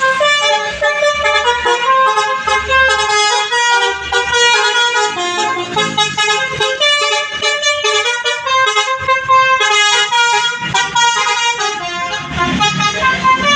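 Tour bus telolet horn, a set of musical air trumpets, playing a quick melody of many short stepping notes.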